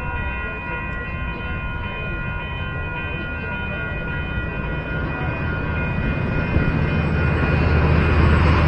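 Railroad crossing bells ringing steadily, with the low rumble of an approaching Metrolink diesel commuter train growing louder over the last few seconds.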